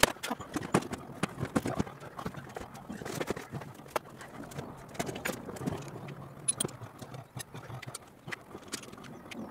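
Irregular metallic clicks and knocks of hand tools and parts being handled on an MGB engine's cylinder head while the valve gear is stripped for the head's removal.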